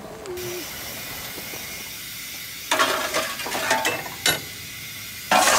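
Steady steam hiss on the footplate of a narrow-gauge steam locomotive. Over it comes the clatter and scrape of a fire shovel at the firehole as the fire is fed: a run of clattering in the middle, a single sharp knock, then a loud clatter near the end.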